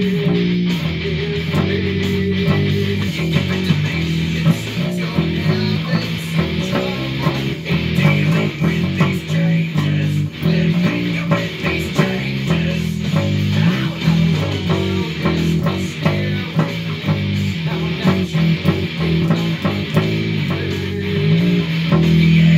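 Loud rock music: a low bass-guitar riff stepping between notes, with guitar and regular drum hits.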